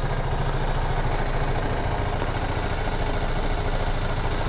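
BMW G310GS's single-cylinder engine idling steadily.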